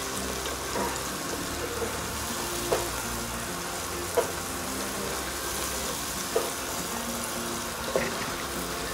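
Thick curry paste sizzling in coconut oil in a wok as it simmers, a steady frying hiss with four short clicks spread through it.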